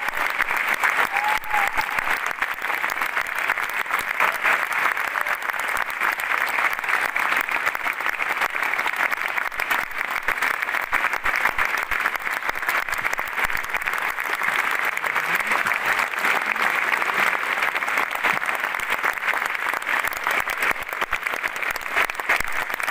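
A large theatre audience giving sustained, steady applause, a dense wash of many hands clapping.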